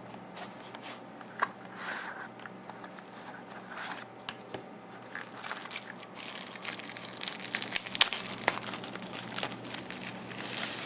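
Plastic bubble wrap crinkling and crackling as a knife wrapped in it is handled and lifted out of a small cardboard box, with scattered light clicks and taps. The handling gets busier in the second half.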